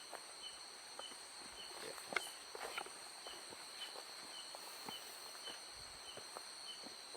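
Night insects such as crickets trilling steadily in several high, unbroken tones, with a short chirp repeating nearly twice a second. Soft, irregular footsteps.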